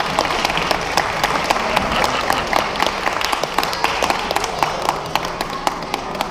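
Audience applauding: many people clapping together in a dense, steady patter that eases off slightly near the end.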